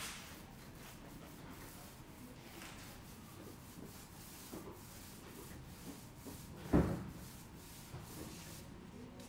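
Faint rubbing and scraping against a wall panel, with one dull thump about two-thirds of the way through.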